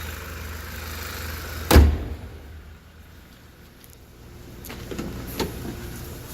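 Audi A4 2.0T turbocharged four-cylinder idling steadily, then a car door shuts with a loud thump a little under two seconds in, after which the idle is heard only faintly, with a few light clicks.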